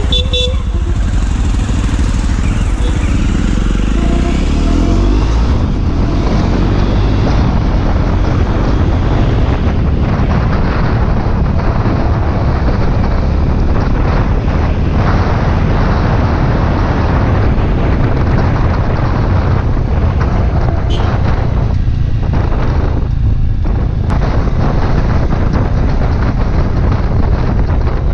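Motorcycle riding on the road, its engine rising in pitch over the first few seconds as it picks up speed, then a steady rush of engine and wind buffeting on a helmet-mounted action camera's microphone.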